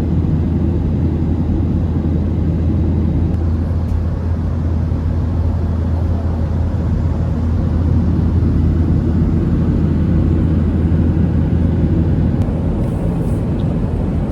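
Steady low drone of an airliner's engines and airflow heard inside the passenger cabin, even and unbroken throughout.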